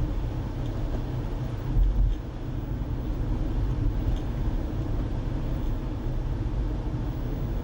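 Steady low rumble of a car driving, heard from inside the cabin: tyre and engine noise, swelling briefly about two seconds in.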